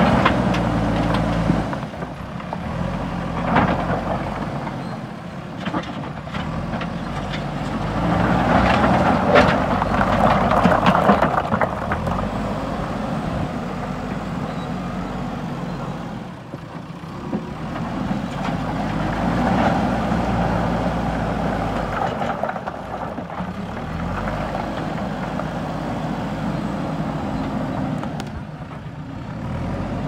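JCB backhoe loader's diesel engine working under load, its note rising and falling, loudest about eight to twelve seconds in, as the front loader bucket pushes into and scoops up a pile of rubble stones. A few sharp knocks of stones hitting the bucket and each other.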